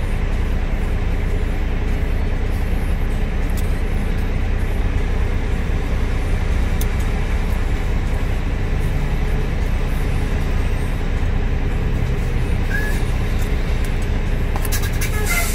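Steady low rumble of an idling semi-truck engine heard inside the cab, with a few light clicks near the end.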